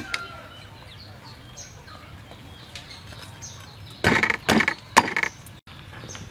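Roasted duck being torn apart by hand, in three loud crackling rips about four seconds in, with faint bird chirps in the background.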